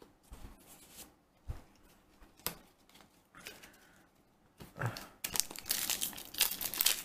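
Foil Yu-Gi-Oh booster pack wrapper being torn open and crinkled by hand, starting about five seconds in after a few faint taps of card handling.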